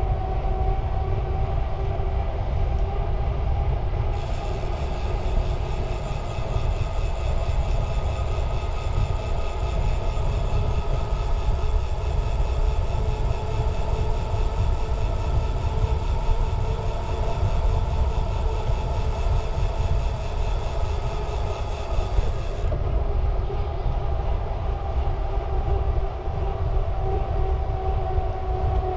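A vehicle running steadily: a continuous low rumble with a constant hum at two pitches.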